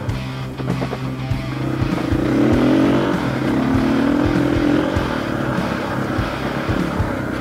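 Background music with a steady beat. Under it, from about two seconds in, a KTM 500 dirt bike's single-cylinder engine revs up and holds.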